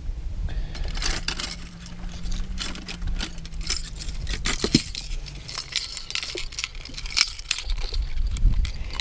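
Metal treble hooks and split rings on a large muskie lure clinking and jangling as it is handled, with scattered small clicks and knocks throughout.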